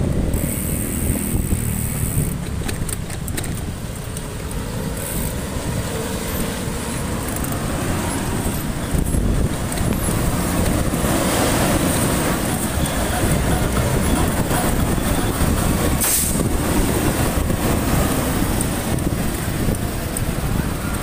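Motorcycle riding through city traffic: steady wind rumble on the microphone mixed with engine and road noise.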